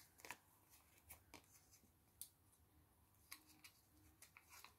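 Near silence, with a few faint paper rustles and light ticks as paper sticker nail forms are peeled off their backing sheet and pressed onto the fingers of a practice hand.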